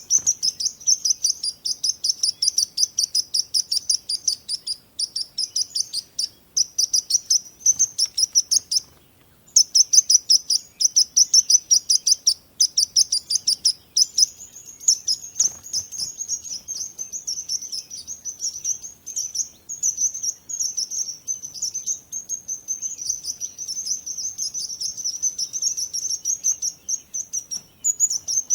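Birds chirping in a fast, continuous string of high, short chirps, many a second, broken by a few brief pauses.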